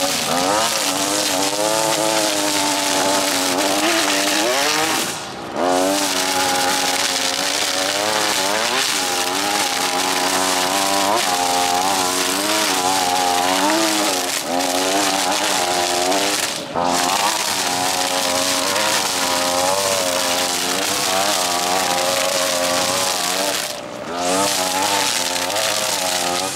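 String trimmer engine running hard while cutting tall grass, its pitch wavering up and down as the load changes. The sound dips briefly about three times.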